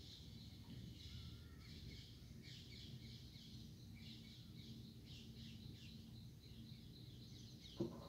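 Faint birds chirping repeatedly over a low steady hum, with one short knock near the end.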